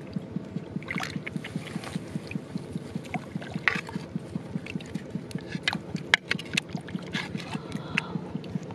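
A small engine running steadily in the background with a fast, even pulse. Over it come water splashing and sharp scraping clicks as a knife blade works a lump in shallow water.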